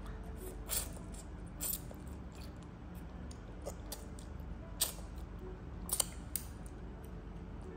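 A toddler eating spaghetti with training chopsticks: a handful of short, sharp clicks and smacks, the loudest about a second in, near the middle and twice close together near the end, over a steady low hum.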